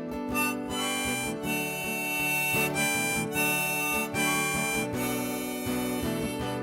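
Background music: an instrumental break with harmonica playing over acoustic guitar.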